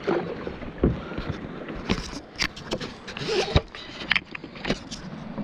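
Handling noise on an action camera: fabric rubbing over the camera and a hand grabbing it, giving irregular knocks and scrapes.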